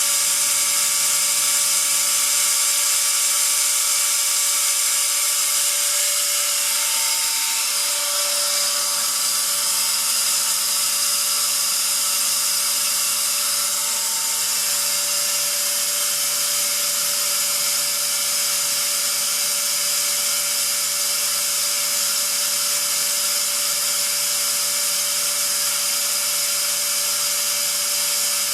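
Atlas Copco ZR 90 oil-free rotary screw air compressor running steadily: an even machine whine made of several steady tones over a strong high hiss.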